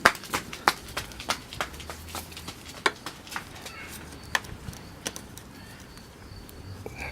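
Sharp clicks and taps from hand work on the scooter's turn signal and plastic parts: a quick run of them in the first three seconds or so, then a few scattered ones.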